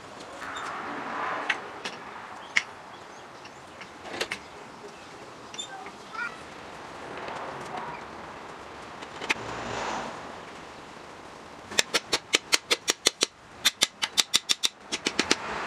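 A wooden mallet taps the hub of a Delta Homecraft band saw's spoked wheel in two quick runs of light, even knocks, about six a second, near the end. Before that come handling and rustling noises and a few separate clicks as the wheel is fitted.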